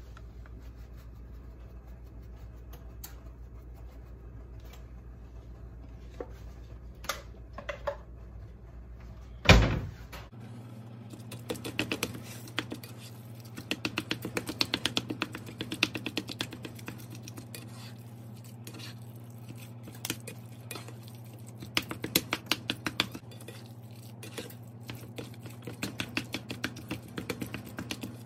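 A slotted spatula chopping and scraping ground chicken in a cast iron skillet, in quick runs of taps and scrapes that begin after a single loud knock about ten seconds in. A low steady hum runs underneath.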